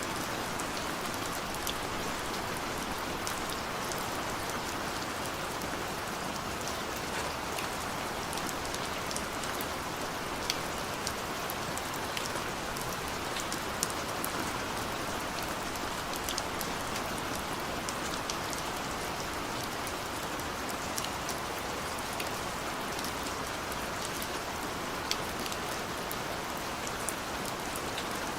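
Steady rain falling on a window: a constant hiss of rainfall with many small, irregular drop ticks on the glass.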